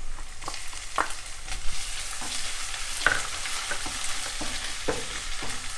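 Ginger-garlic paste and browned onions sizzling in hot oil in a pan, with a utensil stirring and scraping across the pan every second or so.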